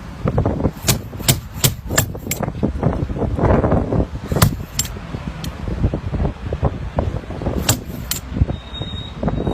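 Irregular sharp knocks and clanks of hand tools striking during car repair work, about ten spread at uneven gaps, over a steady low rumble.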